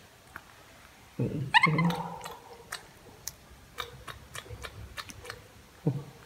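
A baby macaque eating food it has just been handed, with a scatter of soft clicks and smacks. A short vocal sound comes about a second in, and another starts near the end.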